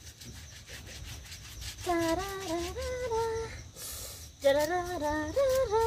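A woman singing a wordless tune in held notes that step up and down, in two phrases starting about two seconds in. Before it there is faint scrubbing, and a brief hiss falls between the phrases.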